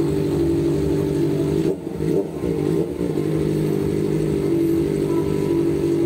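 Kawasaki ZX-4RR's 399 cc inline-four idling through a short aftermarket slip-on exhaust, with a quick throttle blip about two seconds in before it settles back to a steady idle.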